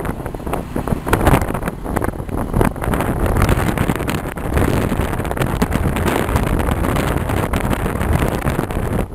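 Wind buffeting the microphone from a moving vehicle, over steady road and engine noise. It is loud and gusty throughout.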